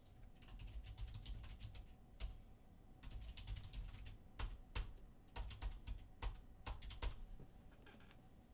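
Typing on a computer keyboard: an irregular clatter of keystrokes with a few louder taps, stopping about seven seconds in.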